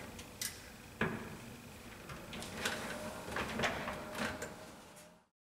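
Sharp plastic clicks and rubbing as red plastic exhaust pipe is pushed into the exhaust port of a VESDA-E aspirating smoke detector: two single clicks in the first second, then a loose run of clicks and handling noise in the second half, cutting off shortly before the end.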